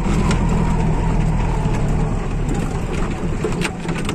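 A vehicle engine running steadily with a low hum that eases off slightly after about two seconds, with a few light clicks over it.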